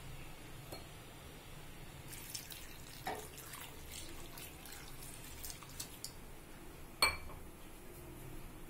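Water poured from a steel tumbler into a stainless steel pot of cut raw banana pieces, splashing and trickling. A single sharp metallic clink near the end.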